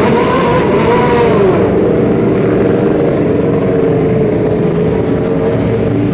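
Motorcycle engines running and revving in passing street traffic, loud and continuous, with a rise and fall in pitch about a second in.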